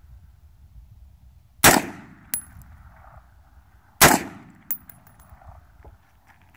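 Two single rifle shots from an 11.5-inch-barrel AR-15 short-barreled rifle, about two and a half seconds apart, each trailing off in an echo. About two-thirds of a second after each shot comes a faint, short metallic ring, typical of a distant steel target being hit.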